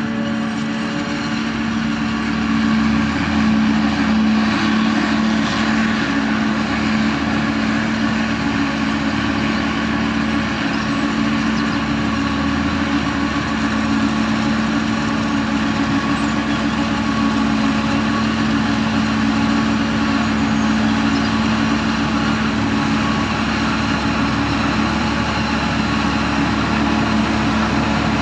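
Self-propelled forage harvester chopping maize, with a Fendt tractor pulling its trailer alongside: a steady, loud heavy-machinery drone with a strong low hum.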